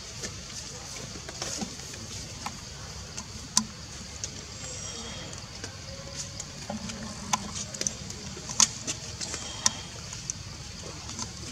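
Outdoor forest ambience: a steady low rumble under a high hiss, with a few faint brief chirps and scattered sharp clicks and snaps. The loudest clicks come about three and a half and eight and a half seconds in.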